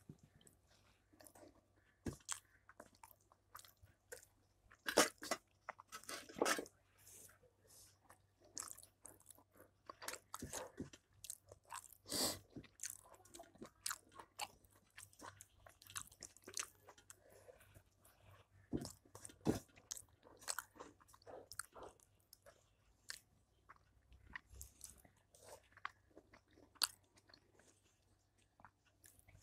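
Close-miked chewing and mouth smacking of a person eating rice and curry by hand: irregular short, wet clicks and smacks, fairly quiet.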